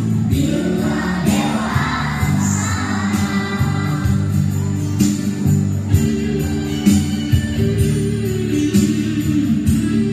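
Children's school choir singing together with musical accompaniment.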